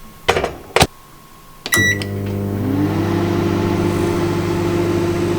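Microwave oven being started: two knocks, then a click and a short beep about two seconds in, after which the oven runs with a steady hum. A tone within the hum rises briefly as it gets going, then holds level.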